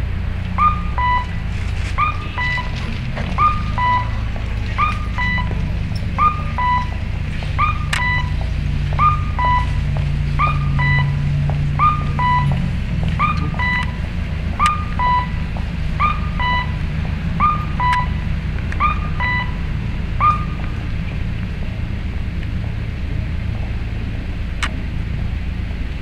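Rikuun No. 21 audible pedestrian signal playing its electronic 'kakkō' cuckoo tone, a high note then a lower one, repeated about every second and a half and stopping about 20 seconds in; the tone marks the green walk phase for visually impaired pedestrians. Low traffic rumble runs underneath.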